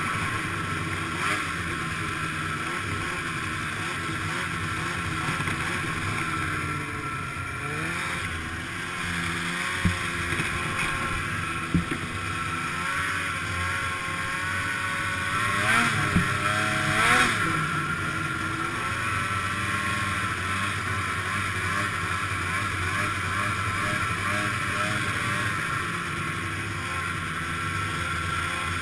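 Snowmobile engine running as the sled rides along a trail, its pitch wavering with the throttle and climbing briefly about halfway through. Two short knocks come just before that.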